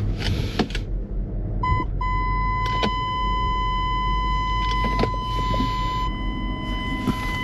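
A vehicle's warning alarm: a short beep, then from about two seconds in a continuous high-pitched tone, over the engine idling and a few light knocks. The mechanic wonders whether it is the tailgate-open warning.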